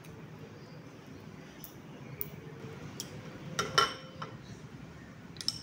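Glass dessert bowls clinking, with a ladle tapping against them as a thick dessert is served. A few light taps, then a louder ringing clink about three and a half seconds in and another near the end.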